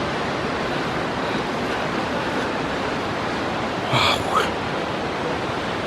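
Steady rushing of spring water flowing from the cave pool, with a brief sharper sound about four seconds in.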